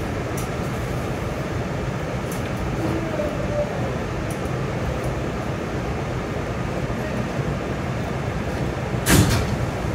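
Steady rumble and hum inside an R211S subway car on the Staten Island Railway, with a brief loud clatter about nine seconds in.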